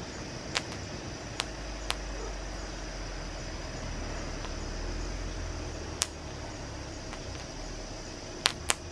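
Popcorn kernels popping in the heat of molten lava: a handful of sharp, separate pops, two close together near the end. They sound over a steady hiss and a low rumble.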